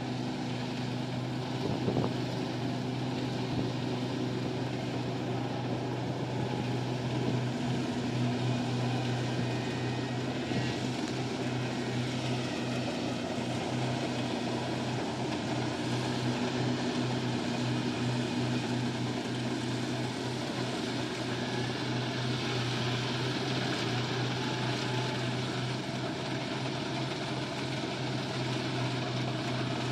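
Kubota rice combine harvester running steadily, its engine a continuous low drone.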